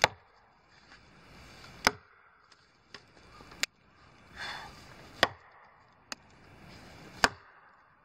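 Axe chopping wood by hand: five sharp strikes about two seconds apart, with a couple of lighter knocks between them.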